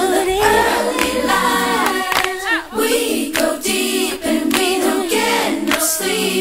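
Background music: a song with sung vocals over a steady accompaniment.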